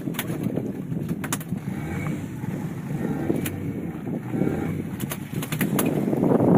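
Wind rumbling on the microphone aboard a small fishing boat at sea, with water noise and scattered sharp clicks and knocks, several close together near the end.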